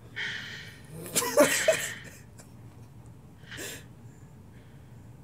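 A man's stifled laughter: a hard rush of breath, then a louder wheezing burst with short squeaky catches, and one more sharp breath about three and a half seconds in.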